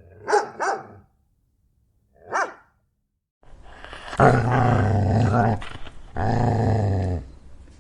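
A dog barks twice, then gives a single higher bark. After a cut, a dog growls in two long, low, loud growls.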